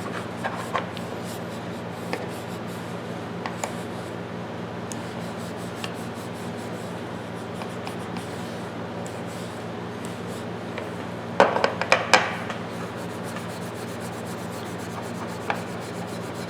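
Steady light rubbing on steel pliers over a low steady hum, with a short cluster of clicks and knocks about eleven to twelve seconds in.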